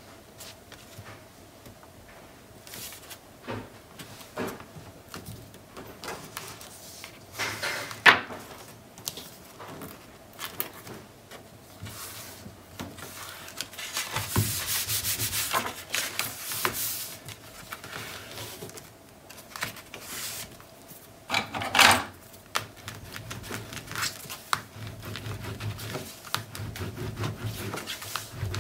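Sheets of paper and cardstock being handled and rubbed flat by hand on a cutting mat: intermittent rustling and scraping, with a longer stretch of steady rubbing about halfway through. Two sharp taps, about a third of the way in and again near the three-quarter mark, are the loudest sounds.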